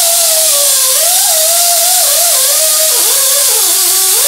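Air-powered wire wheel scrubbing the mounting flange of an exhaust manifold clean: a loud high whine over a steady hiss. The pitch wavers and dips as the wheel is pressed into the metal, most clearly about three and four seconds in.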